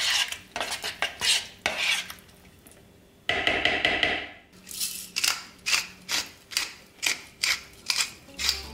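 Metal spoon stirring scrambled tofu in a ceramic bowl, scraping and clinking against the bowl in quick repeated strokes. There is a short pause about two seconds in, then a longer drawn-out scrape a little after three seconds.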